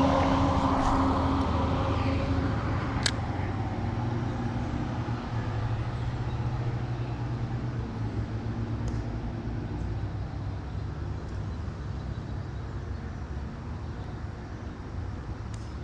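Motor vehicle running steadily with a low engine hum over a wide noise, slowly fading away. A single sharp click about three seconds in.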